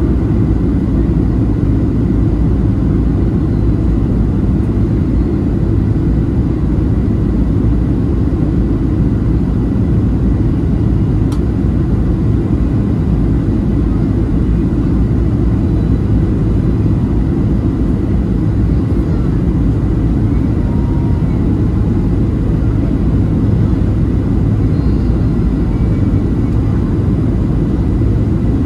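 Steady low rumble of a Boeing 737-700 in flight, engine and airflow noise heard from inside the cabin, with a faint steady whine above it.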